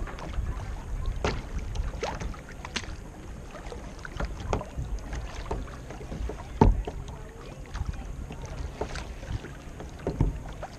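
Kayak paddle dipping and splashing, with water slapping against the hull in irregular strokes over a low wind rumble on the microphone. One louder thump comes about six and a half seconds in.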